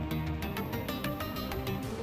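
Background music: an electronic track with sustained notes over a fast, even ticking beat, which drops out just before the end.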